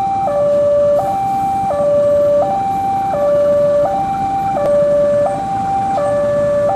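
Electronic two-tone warning alarm, switching between a lower and a higher tone about every three-quarters of a second, steady in pitch and loudness, over the low rumble of an approaching diesel locomotive.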